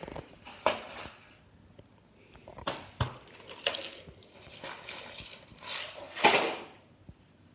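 Handling noise: several sharp knocks and short rustles as a can and other objects are knocked about and grabbed on a granite countertop and the recording phone is handled, the loudest rustling knock near the end.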